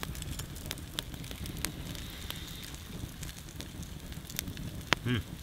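Wood campfire burning in a fire ring, crackling with scattered sharp pops over a low steady rumble. A short hum of a man's voice comes near the end.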